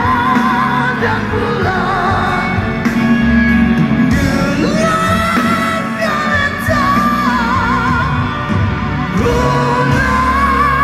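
Live rock band playing full out, with a male lead singer holding long notes with a wavering vibrato over guitars, keyboard and drums, heard through the PA from within the crowd.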